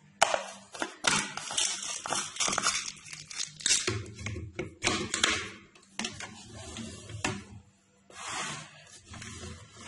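Irregular scraping, rattling and clicking from a steel mixer-grinder jar being handled with roasted chickpeas and almonds inside, ahead of grinding.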